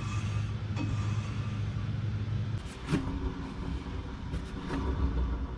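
Cabin noise of a Nissan Otti on the move: a steady low drone that drops away about two and a half seconds in, leaving a lower rumble, with a few light clicks.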